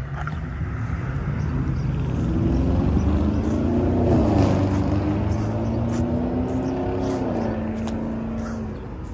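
A motor vehicle passing by, its engine hum and low rumble swelling to a peak about four seconds in, then fading off near the end.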